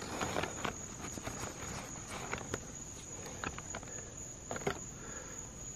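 Night insects trilling in one steady high-pitched tone, with scattered light clicks and rustles over it.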